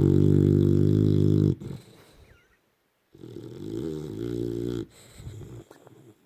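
Boxer dog snoring in its sleep: two long snores with a pause of about a second and a half between them, the first one louder.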